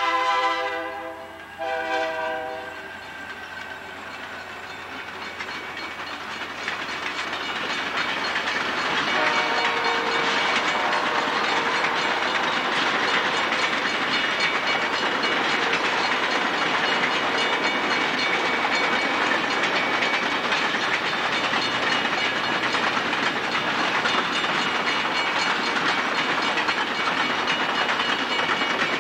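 An Algoma Central passenger train's locomotive horn sounds a chord that breaks once and ends about two seconds in. Then the train passes close by: a steady rumble and clatter of the passenger coaches on the rails, growing louder over the next several seconds and then holding steady.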